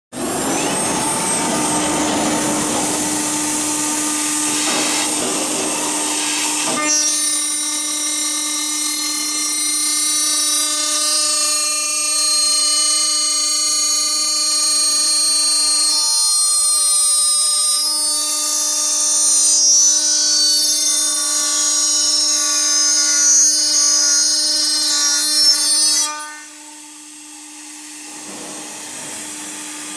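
The high-speed spindle of an aluminium profile CNC machining center cuts an aluminium extrusion with a steady high whine. The first several seconds are harsher and noisier. Near the end the sound drops much quieter, leaving a softer tone.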